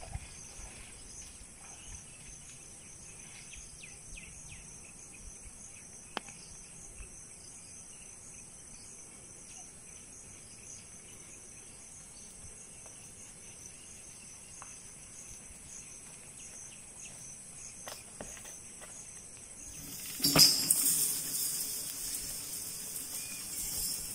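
Insects trilling steadily and faintly over quiet outdoor ambience. About twenty seconds in, a much louder burst of noise covering most pitches cuts in and carries on.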